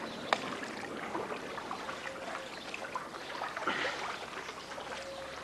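Paddles dipping and pulling through floodwater beside an inflatable raft, with splashing and dripping, and one sharp knock just after the start.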